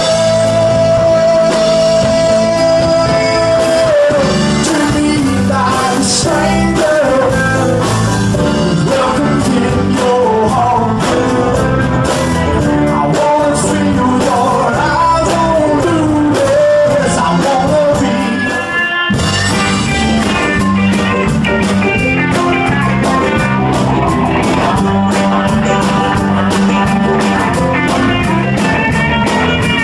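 Live country band recorded on a cellphone: singing over electric guitar, bass and a steady beat. About two-thirds of the way through there is an abrupt cut into another song.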